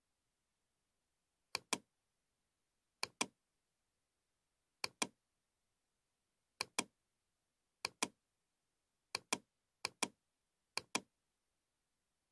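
Computer mouse button clicked eight times, one to two seconds apart, each click a pair of sharp ticks as the button goes down and comes back up.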